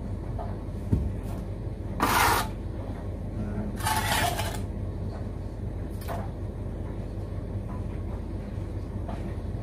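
A bricklaying trowel scraping mortar against brickwork in a few short strokes, after a single knock about a second in.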